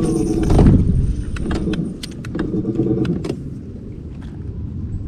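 Electric trolling motor humming steadily. It cuts out about a second in, comes back briefly around two and a half seconds in, and is on again near the end, with scattered sharp clicks from handling the rod and spinning reel.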